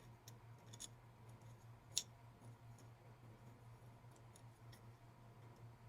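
Faint clicks of small axle parts being handled, a low steady hum beneath, with one sharper click about two seconds in.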